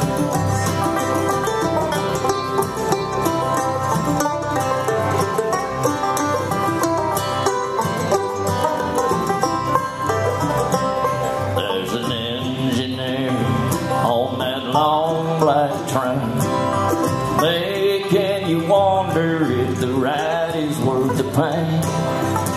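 Live acoustic bluegrass band playing an instrumental break: banjo, acoustic guitars, mandolin and upright bass picking together. About halfway through, the lead line changes to bending, wavering notes over the rhythm.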